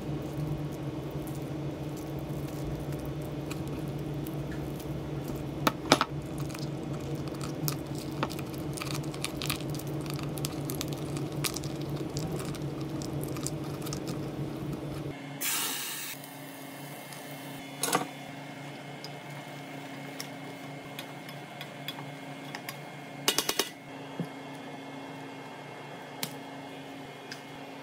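Hands working raw spiny lobster tails on a wooden cutting board, with soft squishing and the odd click of shell over a steady hum. About halfway through, the hum changes and there are a few sharp clicks and clatters.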